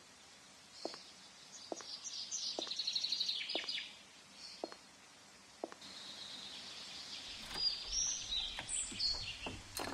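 Birds chirping and trilling, with the faint clicks of high-heeled shoes on stone paving, about one step a second, over the first half or so.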